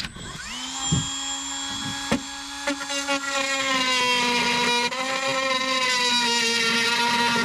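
Hand-held electric power tool starting up and quickly rising to a steady whine, then cutting out the opening for a bilge pump. From about three seconds in, a rough cutting noise builds under the whine and the pitch wavers slightly under load.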